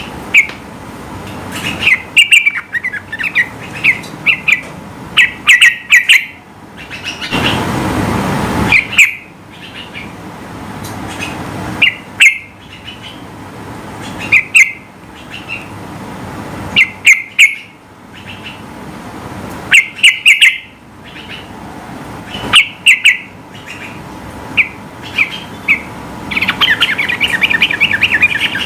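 Yellow-vented bulbul (trucukan) singing in short bubbly bursts of chirps every couple of seconds, ending in a faster chattering run. A brief low rushing noise comes about eight seconds in.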